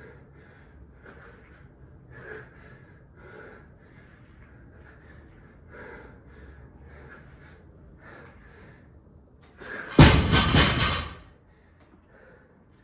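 Hard, rhythmic breathing from exertion, then about ten seconds in a loaded barbell is dropped to the floor, its plates clanging and bouncing for about a second and a half.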